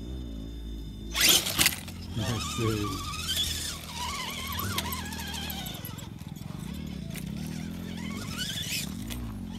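A radio-controlled off-road truck's electric motor and drivetrain whining, the pitch rising and falling with the throttle. A loud, sharp burst comes about a second in.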